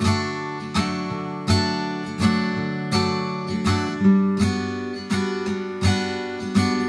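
Background music: an acoustic guitar strummed in a steady rhythm, a chord about every three quarters of a second, each ringing out and fading.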